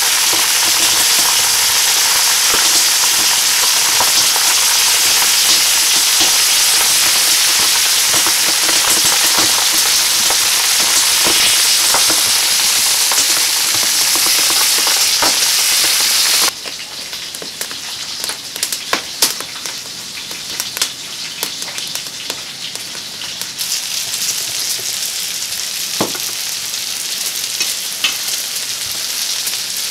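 Pork chops and vegetables sizzling in a hot plough-disc pan, a dense frying hiss. About sixteen seconds in the sizzle drops suddenly to a quieter level with scattered crackles and ticks.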